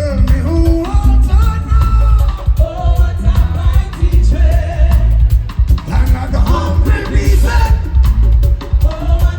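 Live reggae band playing with heavy bass and drums, a singer's voice carrying the melody over it.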